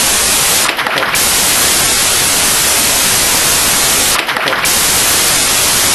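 Loud, steady static hiss like white noise, briefly thinning in the treble twice, about one second in and again about four seconds in.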